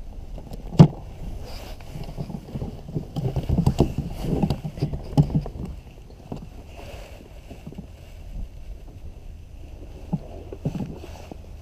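Handling noise in a sit-on plastic kayak: a sharp knock about a second in, then a run of knocks and rustles around four to five seconds in, and two more knocks near the end. Steady low wind noise sits under it all.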